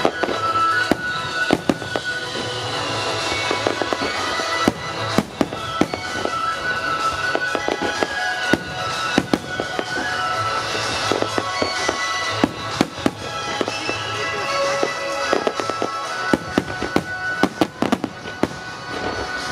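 Starmine fireworks display: a rapid, irregular volley of shells bursting and crackling, several reports a second at times, over music played along with the show.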